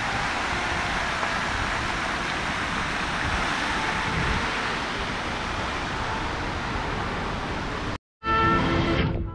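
Large fountain's many jets spraying and splashing into its basin, a steady rush of water. It cuts off suddenly near the end and music with held notes begins.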